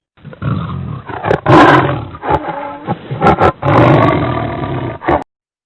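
Recorded wild animal calls: loud, harsh vocalisations in several surges, cutting off about five seconds in.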